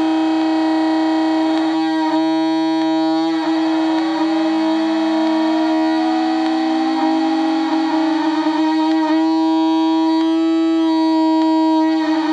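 Home-built Weird Sound Generator noise synthesizer droning steadily with a stack of buzzy overtones. Partway through, a second tone glides slowly upward. The drone turns to a rough, stuttering buzz twice: once early on and again for a few seconds near the end.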